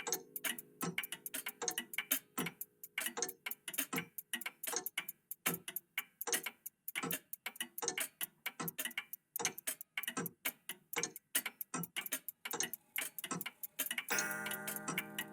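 Several old mechanical clocks, a cuckoo clock among them, ticking out of step with each other in a dense, uneven clatter of ticks. About a second before the end, a held pitched sound with several tones comes in under the ticking.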